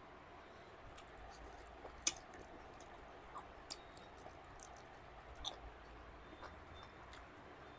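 A person chewing food close to the microphone, with soft wet smacks and scattered mouth clicks; a sharp click about two seconds in is the loudest.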